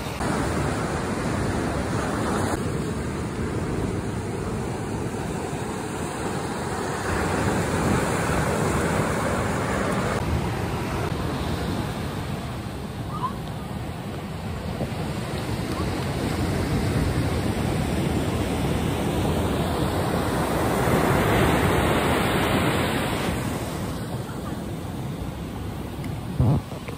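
Ocean surf breaking on a beach: a steady rush of waves that swells louder twice, about eight seconds in and again after twenty seconds.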